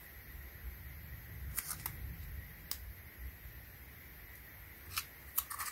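Faint handling noise as blue painter's tape is worked and peeled off a foam shoe: a low rumble with scattered sharp clicks and crackles, a few near the middle and a quick cluster near the end.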